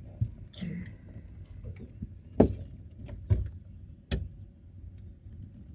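A few sharp knocks and clacks, the loudest about two and a half seconds in, with a brief metallic jingle near the start, from fish-handling gear being moved on a fishing boat, over a low steady rumble.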